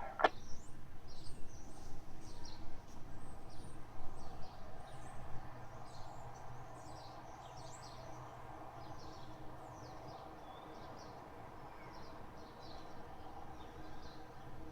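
Small birds chirping and singing in a rapid, irregular run of short high calls, over a steady low hum.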